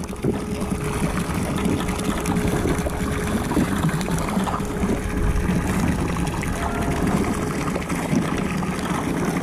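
Steady background noise aboard a small boat at sea, with a faint steady hum running through it.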